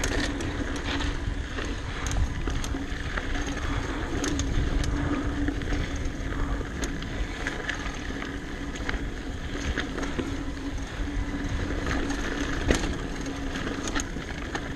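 Giant Talon 27.5 mountain bike ridden along a dirt singletrack: tyres rolling over the ground, with the chain and frame giving frequent sharp rattling clicks over bumps. Steady wind rumble sits on the microphone underneath.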